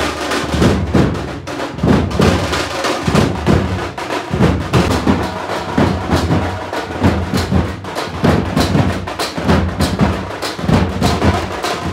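Dhol-tasha drumming: a troupe of drummers beating dhols and tashas in a fast, continuous rhythm of strikes.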